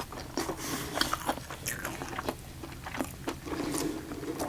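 A person chewing a mouthful of food close to the microphone, with irregular wet mouth clicks and smacks.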